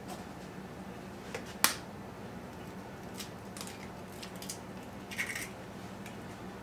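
An egg cracked open with a single sharp crack about one and a half seconds in, followed by a few faint clicks and a short rustle as the shell is pulled apart over the mixing bowl.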